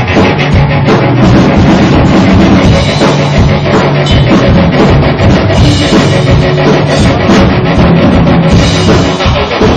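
Loud rock music with a steady drum-kit beat.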